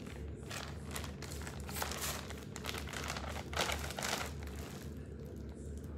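Plastic packaging crinkling and rustling as it is handled, in a string of short bursts, the loudest about two and three and a half seconds in, dying down near the end.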